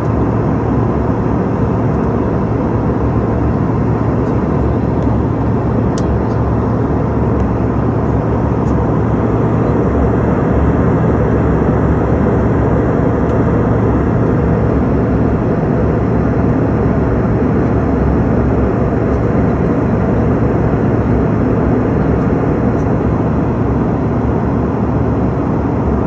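Steady jet aircraft noise, a low hum under an even rush of air, holding the same level throughout.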